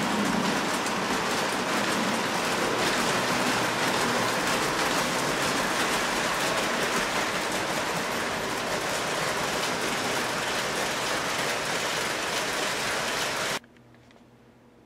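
O gauge three-rail model trains running on the track: a steady rolling clatter of metal wheels on rail, with fine rapid clicks. It cuts off suddenly near the end.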